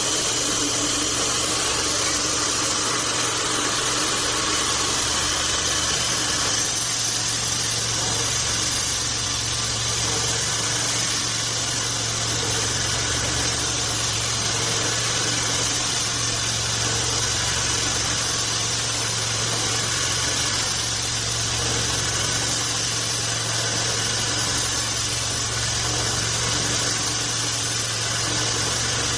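Band sawmill running steadily: an even machine hum with a broad hiss over it, unchanging throughout.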